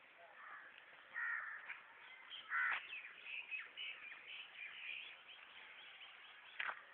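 Birds calling: louder calls about one and two and a half seconds in, then a run of shorter calls and one more near the end.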